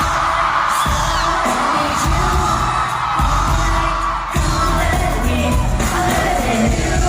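Loud pop song with a singing voice over a heavy, pulsing bass line, played through a sound system at a sound check.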